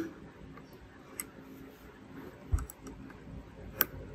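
Metal tips of multimeter test probes clicking against the components and connectors of a laptop motherboard: a few separate sharp ticks, the strongest near the end. A dull knock comes about two and a half seconds in.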